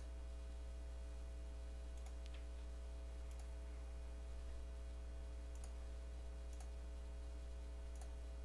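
A few faint, sharp mouse clicks, spaced irregularly, over a steady low electrical hum.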